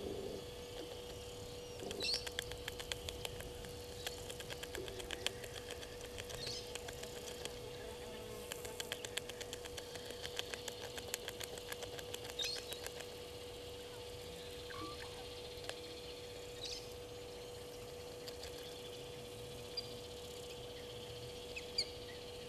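Faint waterhole ambience: a steady hum under runs of rapid fine ticking, with short high bird chirps every few seconds and one lower falling call about 15 seconds in.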